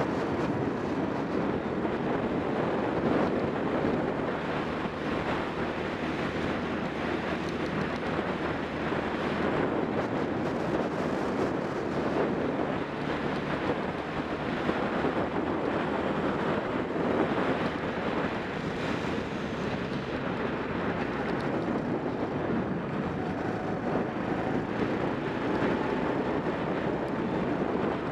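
Racing kart engine running at race speed through the corners, heard from onboard with heavy wind noise on the microphone.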